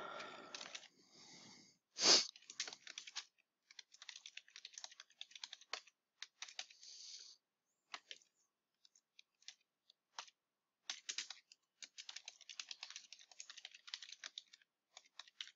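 Typing on a computer keyboard: runs of quick key clicks that thin out to scattered keystrokes for a few seconds in the middle. A sharper knock about two seconds in is the loudest sound.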